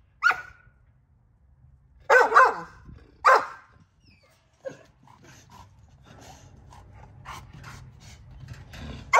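American bully dog barking a few times in the first four seconds, then fainter clicks and scuffs.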